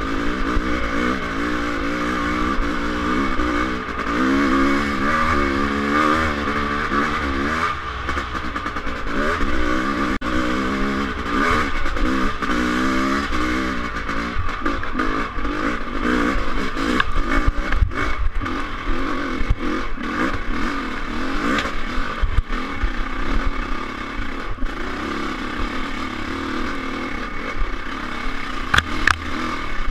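Dirt bike engine revving up and down under load while climbing a steep dirt trail. Clatter and knocks from the bike over rough ground, more frequent in the second half.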